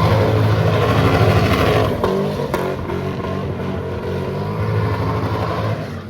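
Car engine revved hard and held high as the car is swung into a drift, easing back a little about two seconds in and running on under throttle.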